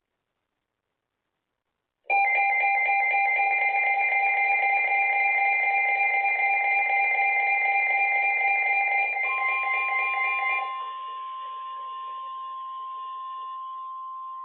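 Emergency alert tones from a weather radio broadcast. A loud, harsh alert sound with several steady pitches starts abruptly about two seconds in and lasts about eight seconds. Near its end a single steady tone, the 1050 Hz NOAA Weather Radio alert tone, joins in and carries on alone at a lower level.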